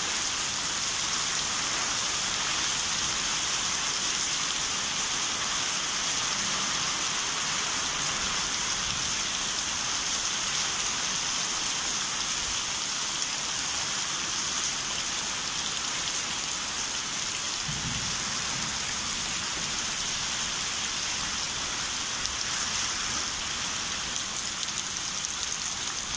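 Heavy rain pouring steadily in a downpour.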